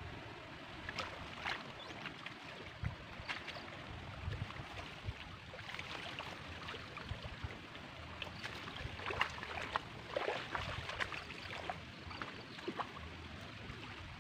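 Water splashing and dripping as a wet fine-mesh seine net is lifted and gathered in shallow pond water. The splashes come irregularly and are busiest about nine to eleven seconds in.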